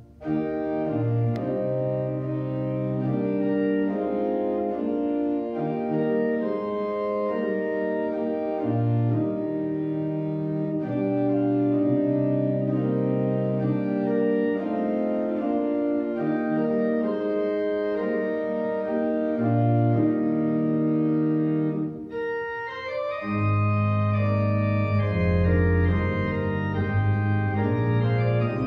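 Church pipe organ playing slow, sustained chords over a moving bass line. About 22 seconds in the sound briefly breaks off, then comes back fuller, with heavier bass notes.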